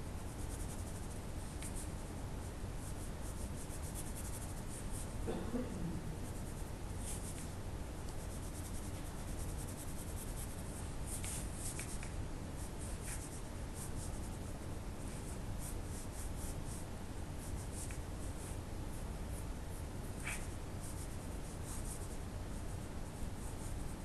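Pen nib scratching on paper in short, scattered strokes as ink line work is drawn, over a faint steady low hum.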